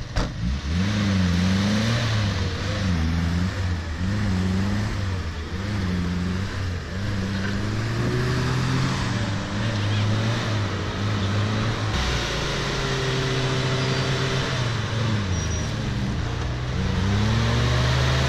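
Daihatsu Feroza 4x4's engine revving repeatedly, its pitch rising and falling again and again as the vehicle works through deep mud.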